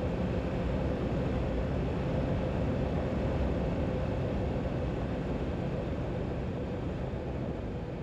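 Riding noise of a 2022 KTM 890 Adventure R parallel twin under way: a steady rumble of wind and engine with a faint hum, picked up by a Cardo Bluetooth helmet headset microphone. It eases off slightly near the end.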